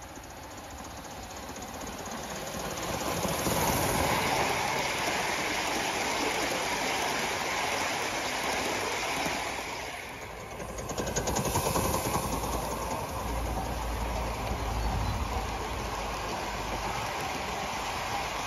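Aster gauge 1 live-steam B1 locomotive running with its coaches: rapid exhaust beats and wheels on the rails, getting louder as it approaches. The sound dips briefly about halfway, then comes back with a low rumble as the train passes close. The cylinders have newly fitted O-ringed pistons.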